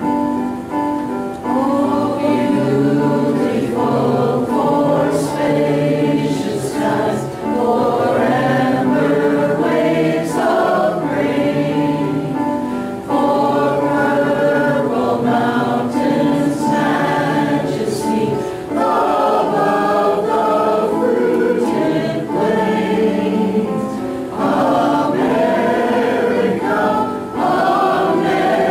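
A small congregation singing a song together in phrases, with brief pauses for breath between lines.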